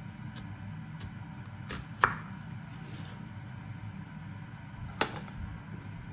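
Chef's knife slicing an onion on a wooden chopping board: a few sharp knocks of the blade against the board, the loudest about two seconds in and another about five seconds in, over a steady low hum.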